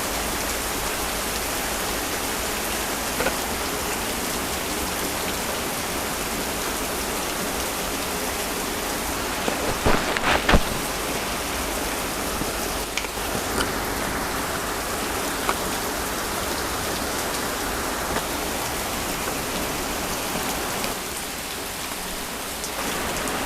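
Heavy rain falling steadily, with a few sharp, close drop hits or knocks standing out, the loudest cluster about ten seconds in.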